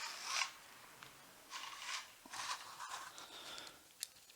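Soft rustling and scraping of handling as a body tape measure is pulled out and wrapped for a measurement, in several short spells, with two light clicks near the end.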